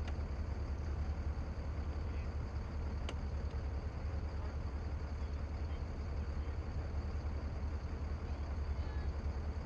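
Navy assault craft's engines running steadily underway: a constant low rumble, with a faint click about three seconds in.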